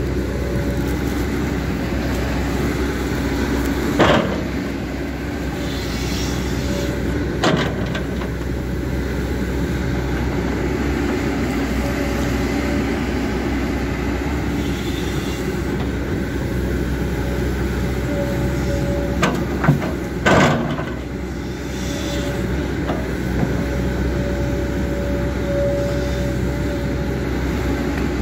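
JCB hydraulic excavator's diesel engine running steadily under load as the bucket digs a trench, with a few sharp knocks from the bucket and arm, a cluster of them about twenty seconds in.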